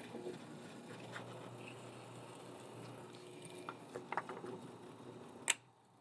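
Drill press running with a faint steady hum as its twist bit bores into pine blocks. A few light knocks come near the end, then a sharp click, and the sound cuts off.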